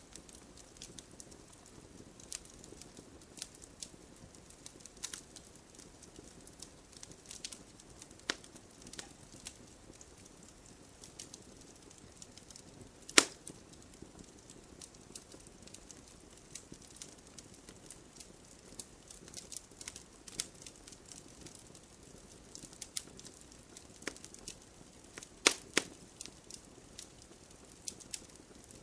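Campfire crackling: a soft, steady hiss broken by irregular sharp pops and snaps. A loud snap comes about halfway through, and several strong pops come close together near the end.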